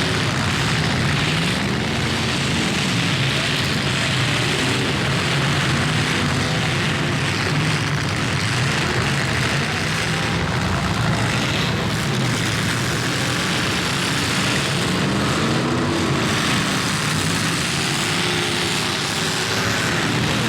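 Several demolition derby cars' engines running hard together, revving up and down in a dense, loud din.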